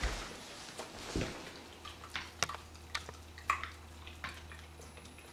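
A boxer dog having a mild focal head seizure: a soft rustle and a low thump near the start and another about a second in, then irregular sharp clicks and wet smacks from its jaws and lips, a few per second at most. A faint steady low hum runs underneath.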